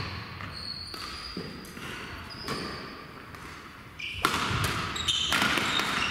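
Badminton rally in a sports hall: rackets striking the shuttlecock with sharp cracks, among shoes squeaking and stepping on the court floor. The play gets busier and louder about four seconds in.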